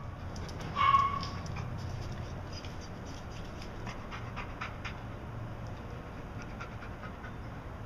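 Dog in a kennel: one short, high-pitched yelp about a second in, then panting over a steady low hum with light clicks.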